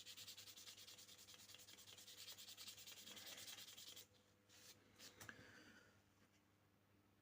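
Quick, rhythmic back-and-forth rubbing on a pocket knife's wooden handle scales, working oil into the wood. The strokes stop about four seconds in, followed by two short fainter rubs.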